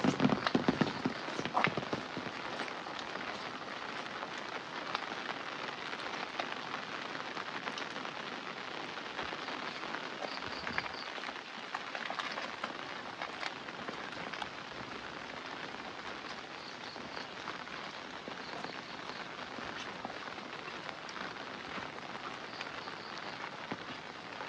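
Steady rain falling on surfaces, with scattered drops ticking close by. A few louder low knocks sound in the first second, then die away.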